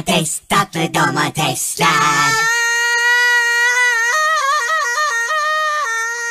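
A cartoon character's voice chatters briefly, then sings one long high note. The note warbles up and down in the middle and settles back to a steady pitch.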